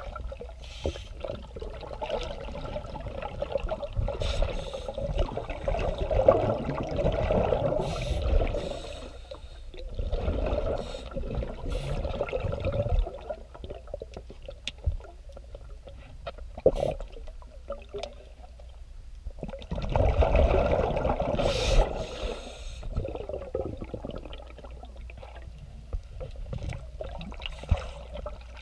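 Scuba regulator exhaust bubbles recorded underwater: several gurgling bursts of exhaled air, each one to five seconds long, with quieter stretches and a few sharp clicks between them.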